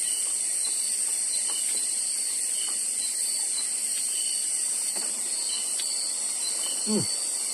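Insects trilling in a steady, high-pitched chorus, with a few faint ticks. A brief low voice sound falls in pitch near the end.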